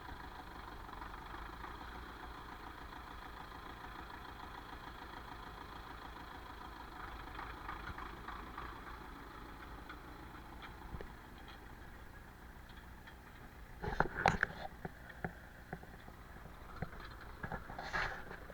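An engine idling steadily, with a few sharp knocks about fourteen seconds in and again near the end.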